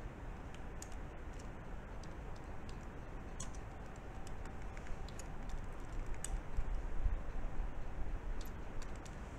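Computer keyboard being typed on: scattered, faint key clicks over a low steady background hum.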